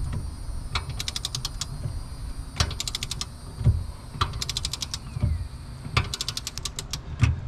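Ratcheting torque wrench tightening the clamp bolt of a Blue Ox BXR2100 gooseneck fifth-wheel adapter down to 45 foot-pounds. Runs of rapid ratchet clicks on each return stroke come every second or two, with a few dull knocks between them.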